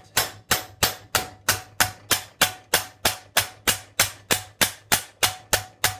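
Steady, even mallet blows, about three a second, on the edge of a thin annealed stainless-steel sheet laid over a steel forging stake, each a sharp metallic clack with a short ring: sheet metal being hammered to shape on the stake.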